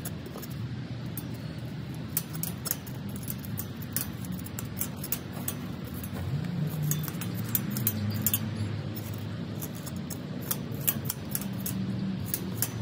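Metal hand trowel digging and scraping at soil along a wooden garden-bed board: a run of short scrapes and clicks over a steady low rumble.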